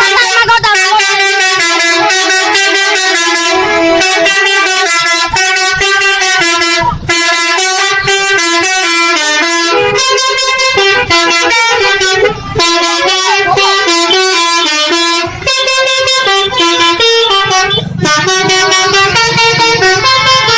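Bus 'telolet' horns, a set of multi-trumpet air horns playing a fast stepping tune, the pitch jumping between notes several times a second with short breaks about 7, 12 and 15 seconds in. A low rumble joins the horns near the end.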